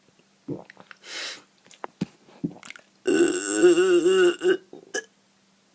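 A deliberate burp made on command by swallowing air: a few small clicks and a short breathy sound, then about three seconds in one loud burp lasting about a second and a half, its pitch wavering.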